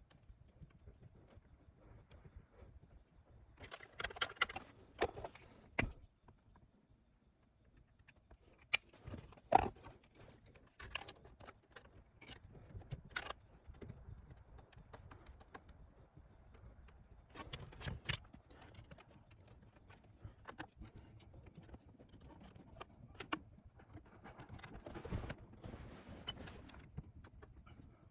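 Scattered clicks, knocks and light metallic clinks at irregular intervals, with quiet stretches between; the loudest knock comes about nine and a half seconds in.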